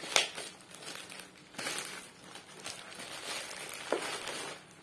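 Plastic courier pouch crinkling and rustling as it is handled and pulled open by hand, with a sharp loud crackle just after the start.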